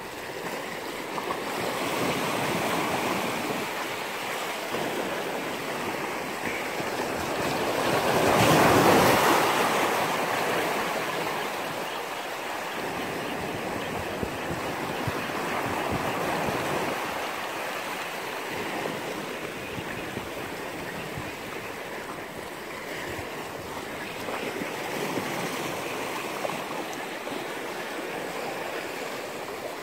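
Small sea waves washing on the shore, an even rushing sound that swells louder about nine seconds in.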